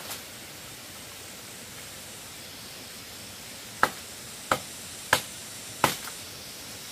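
Four sharp chopping strokes, evenly spaced about two-thirds of a second apart, over a steady background hiss.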